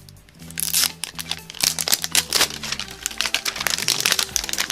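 Plastic and paper toy packaging of an LOL Surprise Hairgoals ball crinkling and tearing as it is pulled open, in a quick run of crackles. Background music plays steady low notes underneath.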